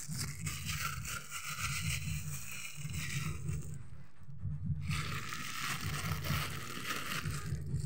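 Clear plastic bag being crumpled and handled, crinkling and rustling, with handling rumble close to the microphone.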